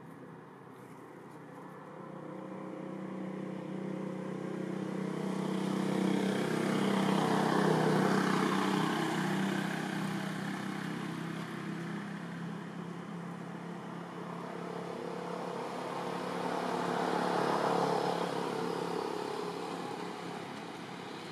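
Motor vehicles passing on a road: engine hum that swells and fades twice, loudest about eight seconds in and again near eighteen seconds.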